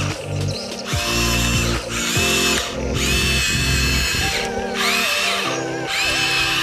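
Electric motor of a Huina 1593 radio-controlled excavator whirring in several short spurts as its upper body swings round, over background music.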